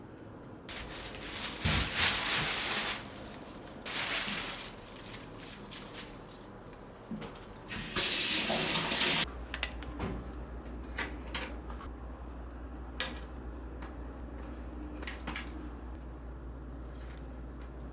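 Water running from a tap into a sink in three bursts, each one to two seconds long, followed by scattered light clicks and knocks.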